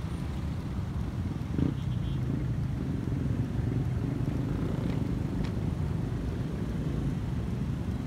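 Steady low rumble of a vehicle engine and road noise while moving in city traffic, with one short thump about a second and a half in.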